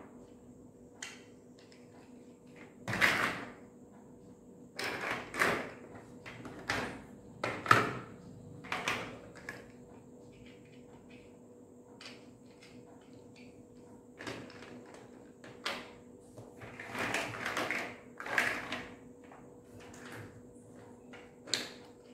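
Hollow plastic building blocks clattering and clicking as they are handled and pressed together, in irregular short bursts, over a faint steady hum.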